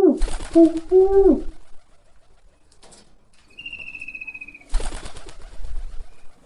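Pigeon cooing: two low two-part coos in the first second and a half. There are bursts of rustling noise, one with the coos and one about five seconds in, and a thin high whistled note of about a second from another bird just before the second burst.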